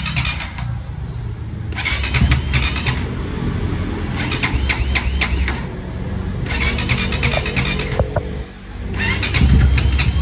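Freshly rebuilt Yamaha WR155R single-cylinder four-stroke engine running on its first test start after reassembly. The throttle is blipped about every two seconds, each blip bringing a burst of brighter, rattly engine noise over the idle.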